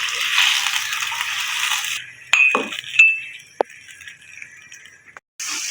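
A pan of kahwa and sugar heating on the stove, hissing steadily for about two seconds. Then a few light kitchenware clinks, two of them ringing briefly.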